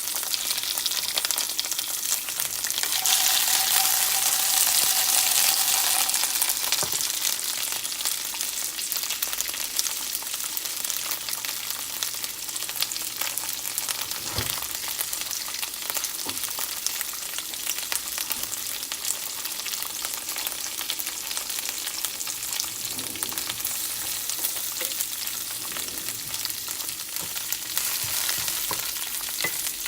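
Green beans sizzling in olive oil in a hot skillet. The sizzle swells louder for a few seconds near the start, and there is a single knock about halfway through.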